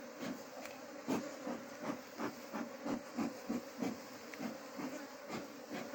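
Bee smoker's bellows pumped in a steady rhythm, about three short hissing puffs a second, over the steady buzzing of honeybees at the hive.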